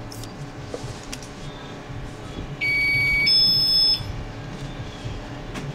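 An electronic beep lasting about a second and a half, the pitch changing halfway through, over a steady low background rumble.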